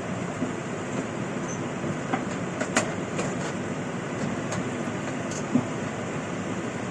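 Combine harvester running steadily, with a few sharp knocks and rattles.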